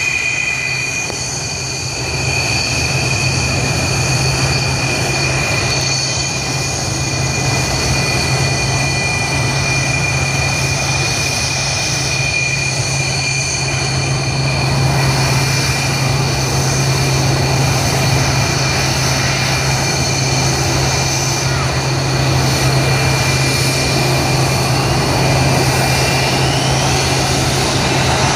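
Fighter jets' turbofan engines running at idle: a steady high-pitched whine over a low hum.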